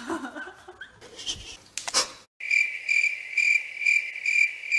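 Soft rustling with a couple of short knocks, then, from about two and a half seconds in, a high steady cricket-like chirping that pulses about twice a second.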